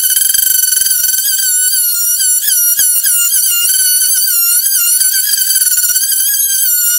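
Oscillating saw cutting a scarf into a wooden boat plank: a continuous high buzzing whine whose pitch dips and wavers as the blade bites into the wood.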